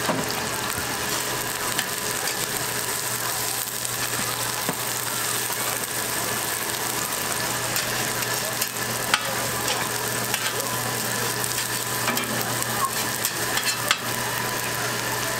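Oil sizzling steadily on a hot flat griddle under frying seafood and green onion pancakes (haemul pajeon). A few sharp clicks of a metal spatula against the griddle come through, one about two-thirds of the way in and another near the end.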